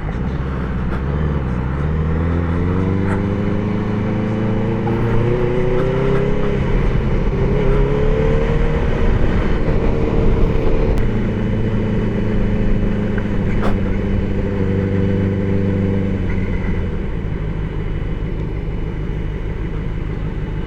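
Benelli TNT600's inline-four engine under way: the revs climb for about six seconds, dip at a gear change, climb again and then hold steady, before dropping off about sixteen seconds in as the bike rolls off the throttle. Heard through a microphone on the rider's helmet.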